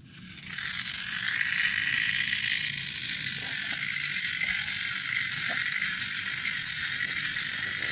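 Small solar-powered DC motor and plastic gearbox of a toy T-Rex robot running steadily, a high whir with gear rattle as the robot walks. It starts up within the first second.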